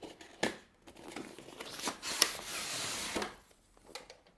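Packaging of a Logitech Illuminated Keyboard being handled and opened: crinkling and rustling for a couple of seconds, with a sharp knock near the start and a click in the middle.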